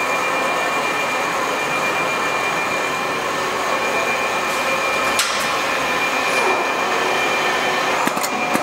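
Automatic single-needle quilting machine running: a steady mechanical noise with a thin, steady high whine from its drives, and a sharp click about five seconds in and another near the end.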